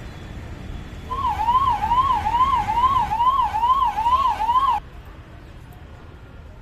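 An electronic siren warbling quickly up and down, about two and a half sweeps a second, starting about a second in and cutting off suddenly after nearly four seconds, over a low traffic hum.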